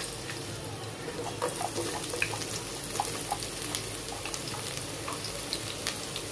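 Sliced onions sizzling in hot oil in a pot, a steady frying hiss with scattered pops and crackles as the onion pieces hit the oil.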